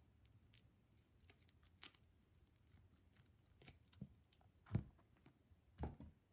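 Scissors snipping through a strip of duct tape: a run of faint, small clicks. Two dull thumps come near the end.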